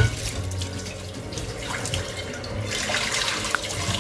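Water running from a tap into a sink while a pan is being washed, with a knock right at the start.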